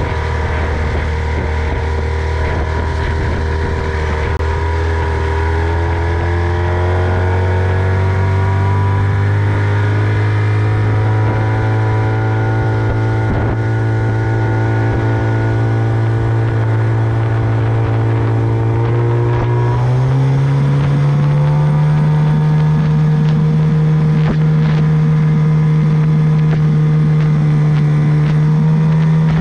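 Tohatsu 25 hp outboard motor running with the boat under way. Its pitch creeps up over the first ten seconds and holds, then the engine speeds up sharply about two-thirds of the way through and holds the higher speed.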